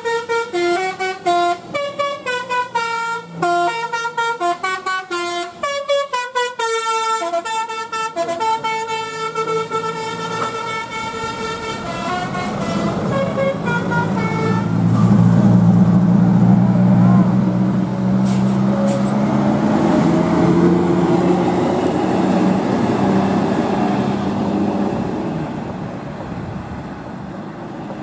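Bus telolet horn playing a quick melody of stepped, changing tones for about twelve seconds. Then a large bus's diesel engine runs loudly as it passes, fading near the end.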